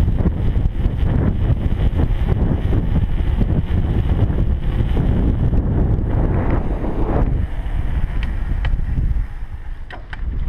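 Wind buffeting an action camera's microphone as a mountain bike speeds downhill on asphalt, a steady low rush. It drops off briefly near the end as the bike slows, with a few light clicks from the bike.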